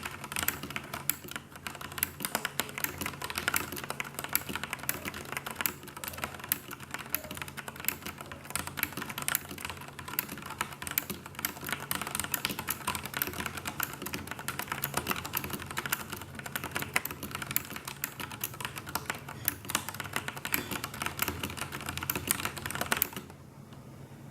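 Continuous typing on a Filco tenkeyless mechanical keyboard with Cherry MX Black linear switches and thin stock ABS keycaps: a dense, irregular stream of key clacks. The typing stops about a second before the end.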